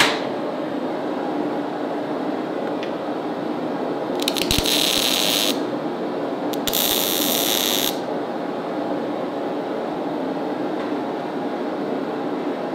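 Two short bursts of arc-welding crackle and hiss, each a little over a second long, about four and seven seconds in, over a steady background roar.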